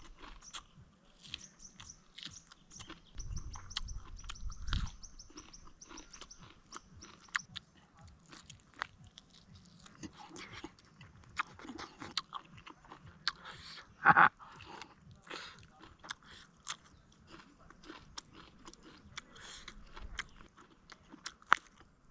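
A person chewing and biting food close to the microphone: irregular crunches and clicks, one much louder crunch about two-thirds of the way through.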